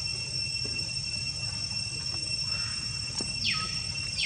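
Steady high-pitched insect drone with a low background rumble. Near the end come two short squeaks, each falling sharply in pitch.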